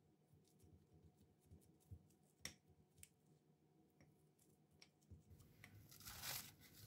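Near silence with a few faint clicks of a metal spoon pressing chocolate biscuit mixture into a cling-film-lined glass. Near the end, a soft rustling starts as the cling film is handled.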